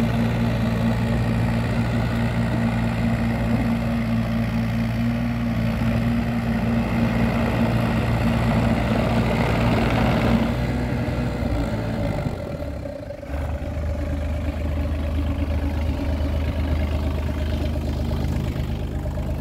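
Takeuchi TB28FR mini excavator's diesel engine idling steadily; about twelve seconds in the engine note dips briefly and settles into a lower, slower idle.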